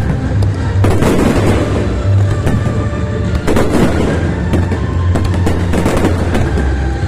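Aerial fireworks bursting and crackling over music, with the biggest bursts about a second in and again around three and a half to four seconds in.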